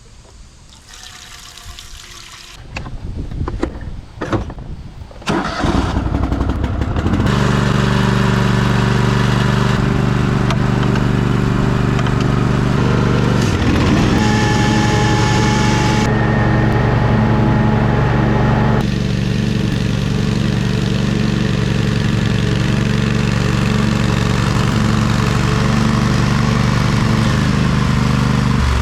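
Riding lawn mower engine cranking and starting about six seconds in after a few knocks, then running steadily, its pitch shifting a couple of times.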